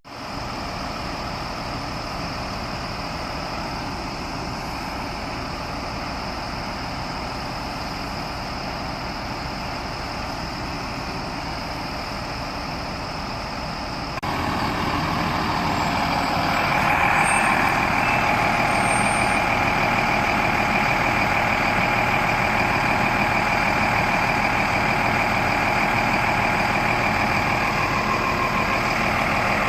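Motor vehicle engine running steadily, with a step up in loudness about halfway through and a brighter hiss added a few seconds later.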